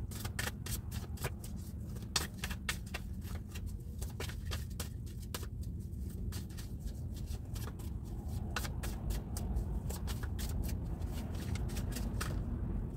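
A tarot deck shuffled by hand, a quick, uneven run of soft card flicks and slaps that stops shortly before the end. A steady low rumble sits underneath.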